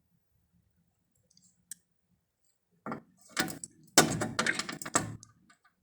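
An African grey parrot chewing and tearing at something with its beak: a quick run of dry clicks and crunches that starts about three seconds in and is densest near the end.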